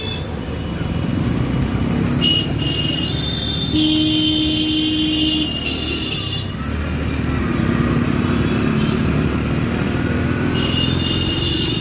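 Busy street traffic from a moving motorcycle: the bike's engine running steadily with road noise, while other vehicles' horns sound several times, a short one about two seconds in, a longer one around four to five seconds in, and another near the end.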